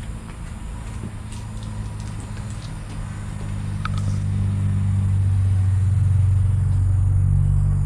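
Low droning rumble that grows louder through the middle and drops away at the end.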